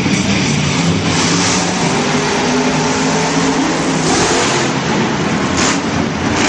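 Monster truck engine running loud and revving, its pitch rising and falling.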